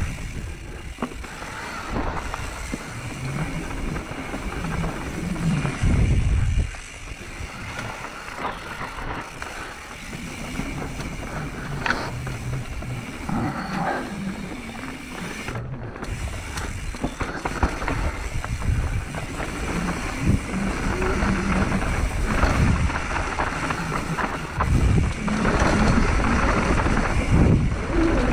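Mountain bike riding down a rough trail: continuous tyre noise over rock and gravel, with frequent knocks and rattles from the bike.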